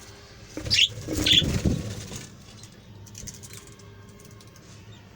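Parrots flapping their wings in a loud flurry about a second in, with two short high calls, then faint scattered chirping.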